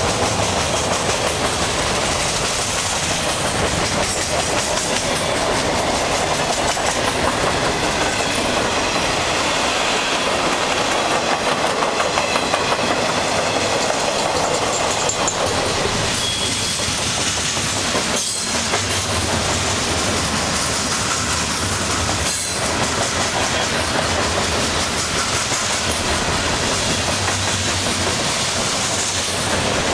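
Freight cars of a long mixed freight train, boxcars, flatcars and tank cars, rolling steadily past: a continuous rumble of steel wheels on rail with the clickety-clack of the wheels over the rail joints.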